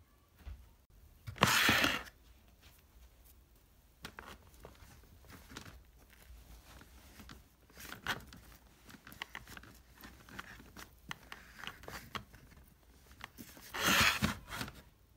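A drawer sliding on its runners, loudly about a second and a half in and again near the end, with soft cloth rustling between as folded clothes are packed into it.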